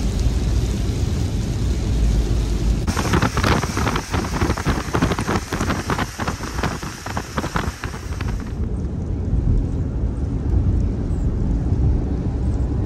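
Car driving in heavy rain: a steady low rumble of tyres on the wet road. About three seconds in, rushing wind and rain spatter come in through an open side window for about six seconds, then cut off sharply, leaving the low rumble.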